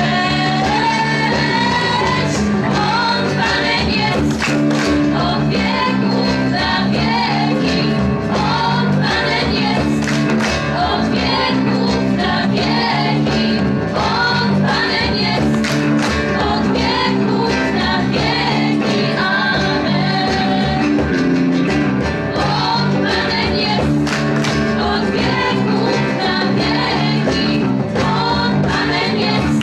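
A small worship group of several women's voices singing a praise song together into microphones, accompanied by guitar, with a steady rhythm throughout.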